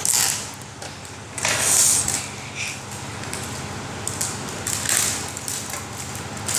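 Cardboard gift box being handled as its packing tape is cut and pulled off: a few short scratchy rips among rustling and scraping, the first right at the start, another about a second and a half in, and one around five seconds in.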